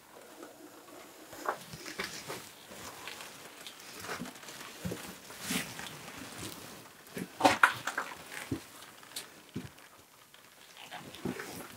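Scattered rustling, scuffing and soft knocks as a person shifts and moves around in the dark while handling the camera, with a louder flurry of rustling about halfway through.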